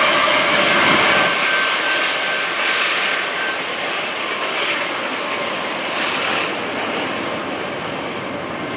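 Two BNSF diesel locomotives at the rear of a covered-hopper freight train passing close by: loud engine and rolling rail noise with a thin steady whine over it. The whine dies away a few seconds in, and the noise slowly fades as the train moves off.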